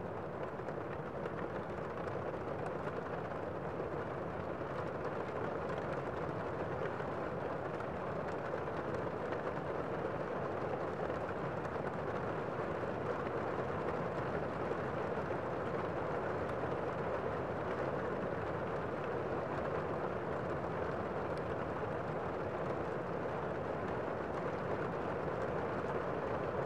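Steady rain, an even, unchanging rush of noise with no distinct drops standing out.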